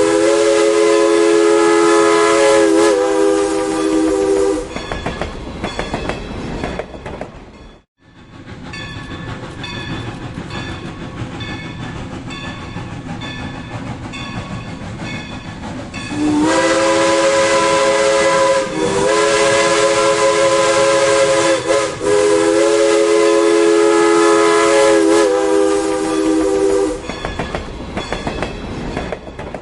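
Steam locomotive's whistle blowing as a warning at a grade crossing, a chord of several tones held in long blasts, over the rumble and clickety-clack of the passing train. The whistle stops about five seconds in and returns around sixteen seconds in for four more blasts, ending a few seconds before the end.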